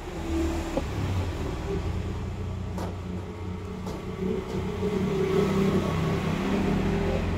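A motor vehicle engine running: a low, steady hum that grows a little louder partway through.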